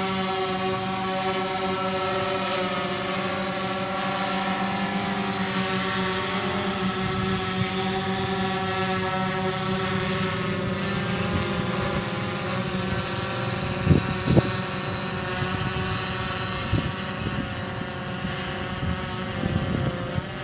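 A motor running steadily, a hum of several level tones. A few brief knocks sound over it about 14 seconds in.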